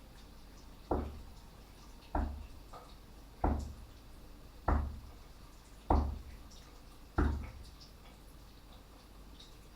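Six dull, heavy knocks, evenly spaced about a second and a quarter apart, each with a deep thud and a short echo in a small tiled room.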